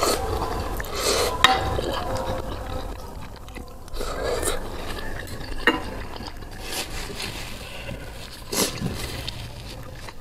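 Soupy ramen noodles being slurped in, then chewed with a full mouth, with a few sharp clinks of a metal fork and spoon against a glass dish.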